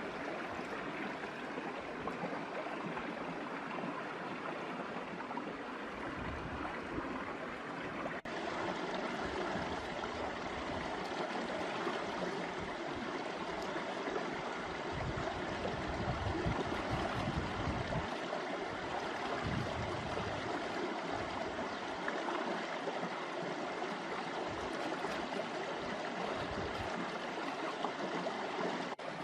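Shallow stream running over rocks: a steady rush of water, with splashing as hands wash greens in it. There is a brief break about eight seconds in, after which the water sounds slightly louder.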